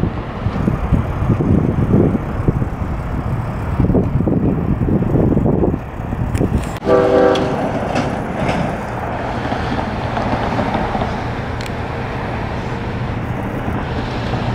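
LIRR MP15 diesel switcher locomotive rumbling as it approaches slowly, with one short horn blast about seven seconds in.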